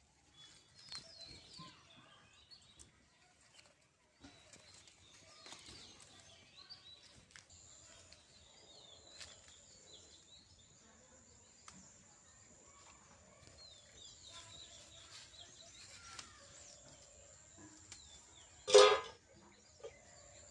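Faint outdoor rural ambience with small birds chirping now and then and a steady high, thin whine from about a third of the way in. About a second and a half before the end comes one short, loud blast, much louder than everything else.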